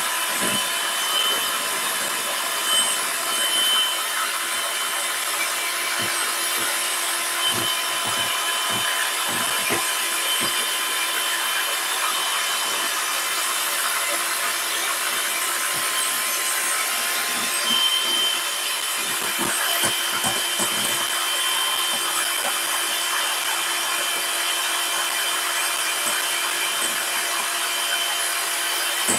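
Russell Hobbs electric hand mixer running steadily with a high whine, its beaters whipping egg, oil and sugar in a glass bowl until fluffy.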